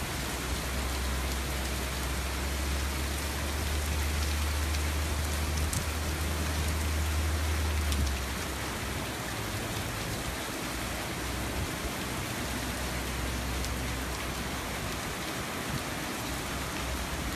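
Heavy rain pouring steadily onto pavement and floodwater, an even hiss. A low rumble runs underneath for the first half and stops abruptly about eight seconds in.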